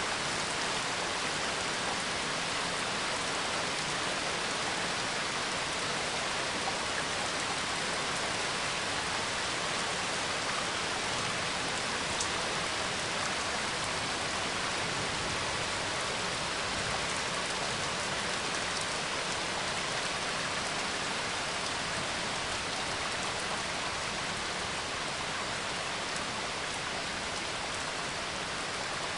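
Steady rain: an even hiss of falling drops that holds level throughout, with no thunder.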